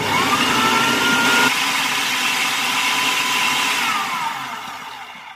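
Electric food processor grinding rolled oats into flour: the motor starts suddenly with a whine that rises at once, runs steadily, then slows with a falling whine and stops near the end.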